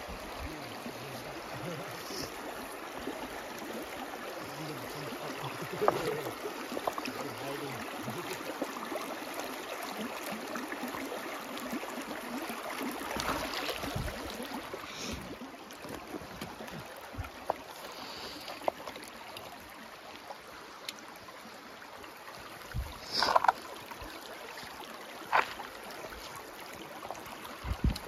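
Shallow creek running steadily over stones, with a few short sharp sounds on top, the loudest a little over three-quarters of the way through.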